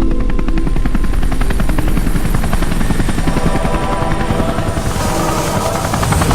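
Helicopter rotor blades chopping in a rapid, steady beat, with a rushing noise swelling near the end.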